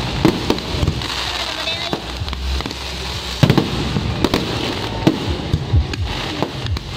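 Fireworks display close by: a continuous crackle of burning stars and sparks with repeated sharp bangs of bursting shells throughout, the loudest cluster of bangs about three and a half seconds in.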